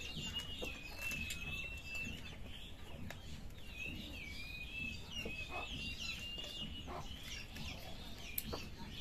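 Birds calling: many short high chirps, with clucking, over a thin wavering high tone that holds for about two seconds at the start and returns for a few seconds in the middle.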